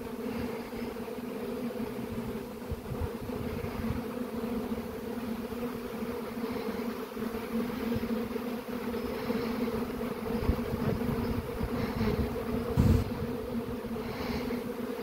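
A swarm of honeybees in flight, a dense steady buzzing hum all around. A brief thump is heard near the end.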